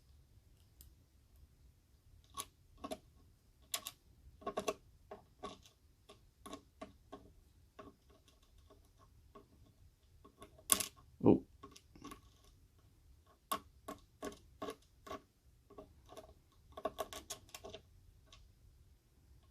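Irregular small metallic clicks and ticks of a lock pick working the sliders out of a disassembled EVVA 3KS lock cylinder, with a louder knock about eleven seconds in.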